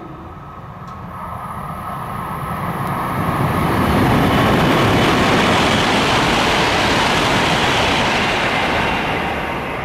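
Kyushu Shinkansen 800 series bullet train passing through a station at high speed without stopping. A rushing sound of air and wheels on rail builds over about four seconds, stays loudest for several seconds, then fades near the end.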